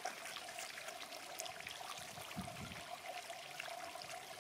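Faint steady background hiss with a constant faint tone, and a brief low muffled sound about two and a half seconds in.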